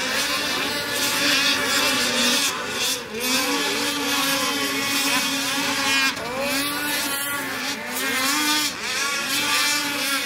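Several racing snowmobiles' two-stroke engines revving hard together. Their pitches sweep up and down again and again as the sleds race the track.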